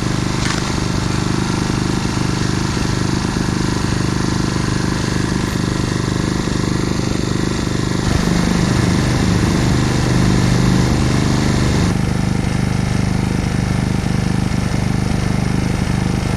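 Yamaha EF1000IS inverter generator's 50cc gas engine running steadily at a fairly fast idle. Its tone shifts about halfway through and again a few seconds later.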